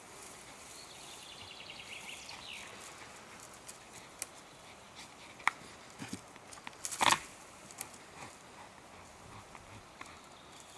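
Pit bull leaping at a springpole rope toy and landing: scattered sharp taps and thuds of its paws and the toy, with the loudest cluster of knocks about seven seconds in.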